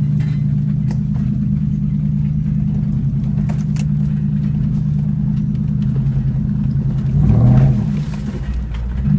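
Vehicle engine running steadily at low speed on a rough off-road trail, with light rattling clicks over it; about seven seconds in the engine revs up briefly, then settles back.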